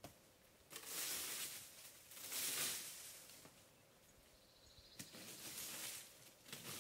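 Several separate bursts of rustling, scuffing noise, each about a second long, with a sharp click at the start and another about five seconds in.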